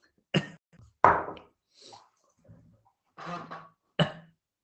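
A man's voice close to the microphone in about six short, sharp bursts rather than running speech, the loudest about a second in.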